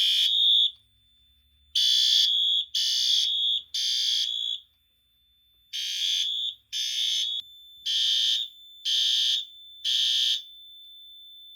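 Fire alarm horn strobes (a Wheelock MT and a System Sensor P2WL white horn strobe) sounding their code 3 temporal pattern from a Firelite MS-5012 panel in alarm. Loud, harsh high-pitched blasts come in groups of three with short pauses between the groups, and a thin steady high tone runs underneath.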